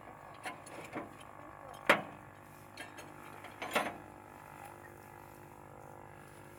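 A few sharp knocks, the loudest about two seconds in and another near four seconds, over a steady mechanical hum.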